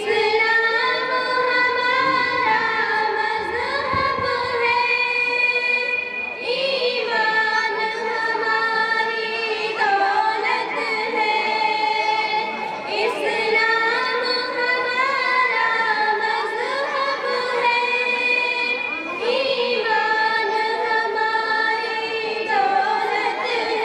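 Three girls singing a tarana, an Urdu sung anthem, together at a microphone, with long held notes that bend from pitch to pitch.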